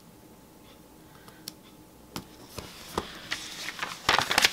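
Paper handling: a few small clicks and taps as planner stickers are pressed onto the page, then, about four seconds in, a loud burst of paper rustling and crinkling.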